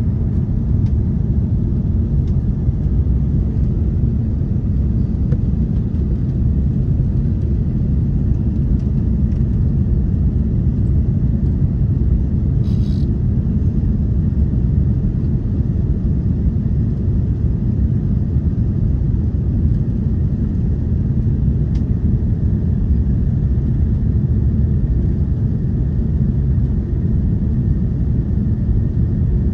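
Steady low rumble inside the cabin of an Airbus A330-300 with Rolls-Royce Trent 700 engines, in flight on the approach.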